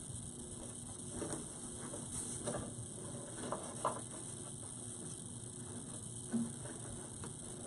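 A few light clicks and knocks, irregularly spaced, from a wooden monogram door hanger being handled and hung on a door, over a faint steady hum.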